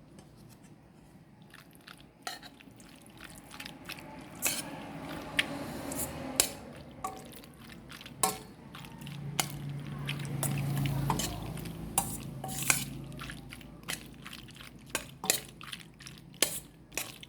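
Kitchen utensils clinking and scraping against a pot and dishes, many irregular sharp clicks, while the macaroni and cheese is being prepared.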